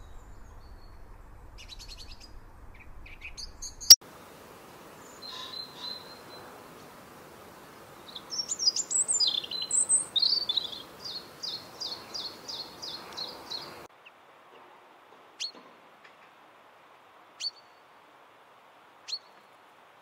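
European robin singing: a varied phrase of high, quick notes, then a run of about ten evenly repeated notes. Before it come a few faint high bird calls over a low hum and a sharp click about four seconds in. After it come three single short chirps about two seconds apart, typical of chaffinch calls.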